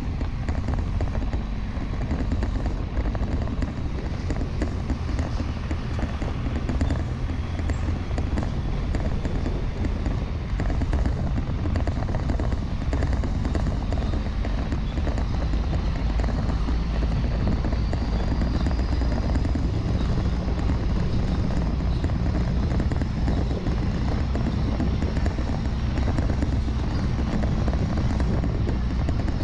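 Dodge pickup's 24-valve Cummins inline-six turbo diesel running steadily as it tows a dump trailer along a gravel track, a constant low drone mixed with tyre and road noise. A faint high whine rises slowly in pitch through the second half.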